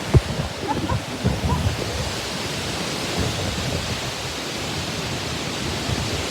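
Strong tropical-storm wind, a steady rushing noise with gusts buffeting the microphone in the first second or so.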